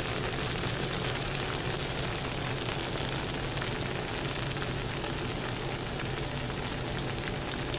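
Steady hiss with a low hum underneath, the constant background noise of the recording. A faint click comes at the very end.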